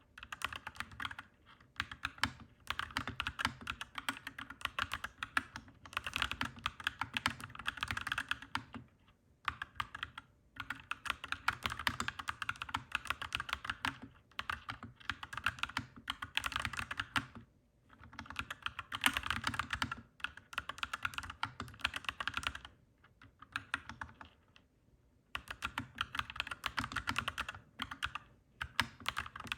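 Clacky mechanical keyboard being typed on quickly, in bursts of rapid key clicks a few seconds long, broken by brief pauses.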